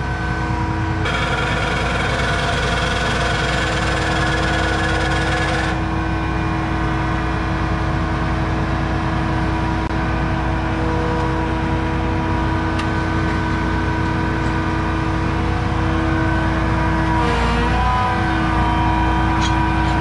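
John Deere 8260R tractor's 9.0-litre six-cylinder PowerTech diesel running steadily. Near the end its pitch dips briefly and recovers.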